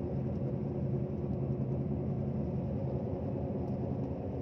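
Road and engine noise inside a moving Toyota's cabin: a steady low rumble.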